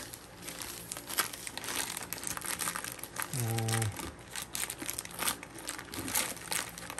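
Clear plastic film wrapping crinkling and crackling as it is handled around a bundle of tubes, in quick irregular crackles. A short hum from a person's voice about halfway through.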